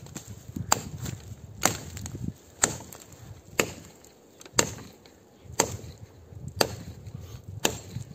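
Bellota axe chopping a fallen pine log on the ground: eight evenly spaced strokes, about one a second, each a sharp blow of the blade into the wood.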